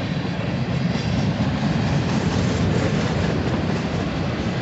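Freight train cars (covered hoppers and tank cars) rolling past close by: a steady noise of steel wheels running on the rails.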